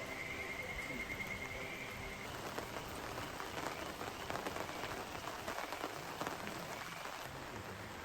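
Steady rain falling and pattering in many small drops. A faint steady tone fades out about two seconds in.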